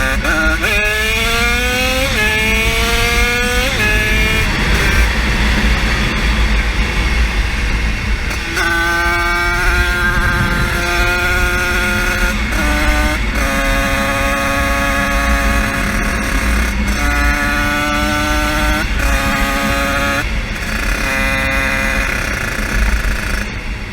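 A 50cc motorbike engine pulled hard under way. In the first few seconds it revs up three times in quick succession, dropping back each time as it shifts up through the gears. After that it holds steady speeds with sudden steps in pitch.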